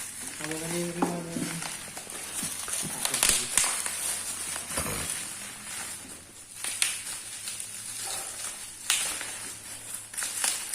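Crinkling and rustling of packaging being handled, with scattered clicks and knocks. A brief low hum is heard near the start.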